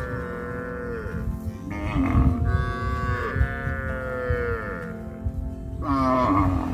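Cows mooing: long drawn-out moos, each sliding down in pitch as it ends. One fades out about a second in, a longer one runs from about two seconds to five, and another starts near the end.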